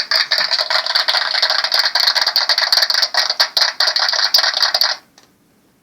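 A noisy, crackling sound effect played through the tiny speaker of a handheld sound effects machine, cutting off suddenly about five seconds in.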